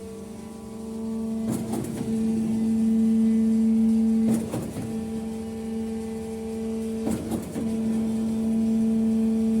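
HBS50 concrete pump running steadily: a constant hum from its power unit, broken three times, about every three seconds, by a short clunking surge as the pumping pistons reverse stroke.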